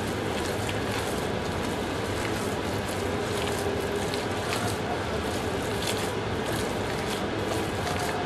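Gloved hands kneading spiced minced meat and egg in a bowl, with soft wet squishes and faint short ticks scattered through it, over a steady rushing background noise.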